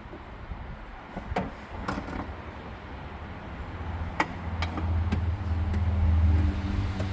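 A low engine rumble that builds and grows louder in the second half, with a few sharp clicks and knocks over it.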